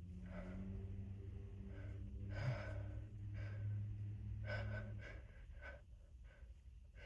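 A person's gasping in-breaths, about three sharp ones with smaller catches between, as a sneeze builds. A low steady hum runs underneath and stops about five seconds in.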